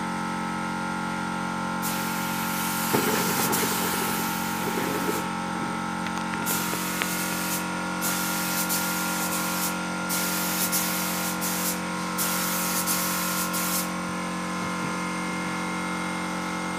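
Compressed-air spray gun hissing in about five separate bursts as its trigger is pulled, laying PU polish onto a wooden window frame. A steady machine hum runs underneath.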